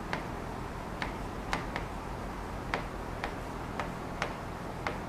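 Pen tip tapping and clicking against the glass of an interactive writing board during handwriting: about nine sharp, irregular clicks, roughly two a second, over a faint low hum.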